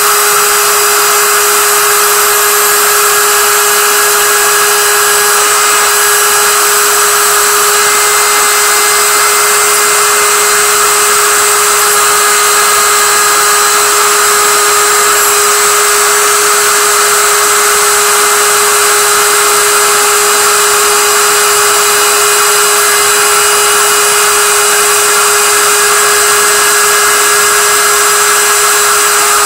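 GP10050 CNC mill's spindle milling 1.5 mm brass sheet with a small end mill: a steady, unchanging whine with a constant tone over a hiss of cutting noise.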